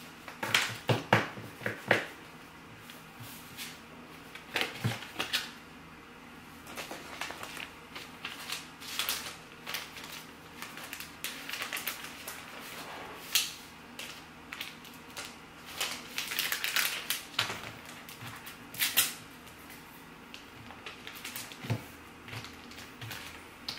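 Sticker sheets and paper cards being handled and sorted on a desk: irregular rustles, flicks and light taps, with a cluster of sharper ones about a second in.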